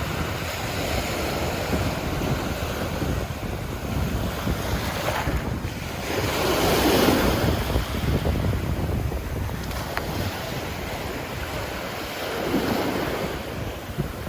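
Ocean waves breaking and washing up on a beach, one louder wave cresting about halfway through and a smaller one near the end. Wind buffets the microphone with a low rumble throughout.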